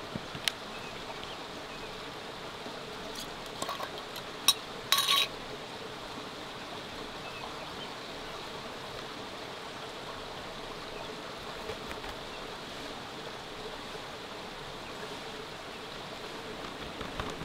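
Steady rush of river water, with a few sharp metallic clinks of cooking utensils about four to five seconds in, the last one ringing briefly.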